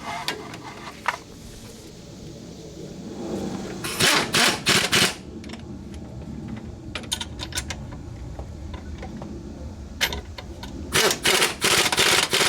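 Several bursts of quick, sharp clicks from a wrench tightening the bolts on a quad's rear chain adjuster after the chain has been tensioned.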